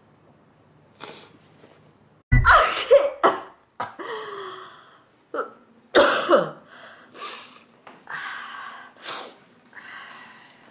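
A person sneezing twice, loudly, about two seconds in and again about six seconds in. The second sneeze ends in a voiced tail that falls in pitch. There is a sharp breath before the first sneeze and noisy breathing between and after the two.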